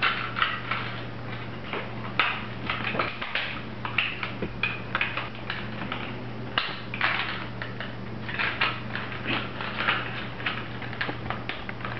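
Hard plastic parts of a partly dismantled quadcopter drone being handled and turned: irregular light clicks and rattles, over a steady low hum.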